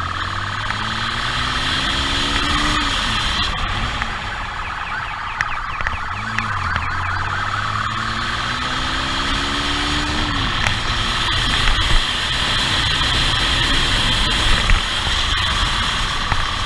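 Police motorcycle engine revving up hard twice, its pitch climbing and then dropping at a gear change, under rushing wind and a siren's steady high tone.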